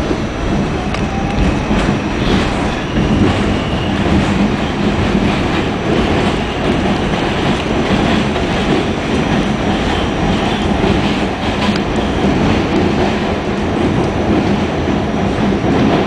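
Pullman Standard R46 subway car running at speed, heard from inside the car: a steady, loud rumble of steel wheels on rail with the clickety-clack of rail joints.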